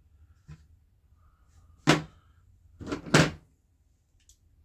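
Sharp knocks of metal hardware being handled and set down on a bench. There is one knock about two seconds in and a quick pair about a second later.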